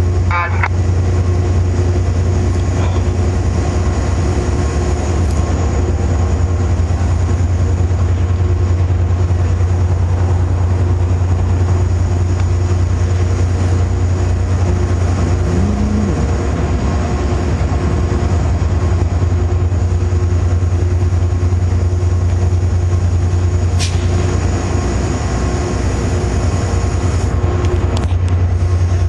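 A locomotive idling, a steady low drone with a few constant higher tones that does not change in level. There is a brief sharp tick near the end.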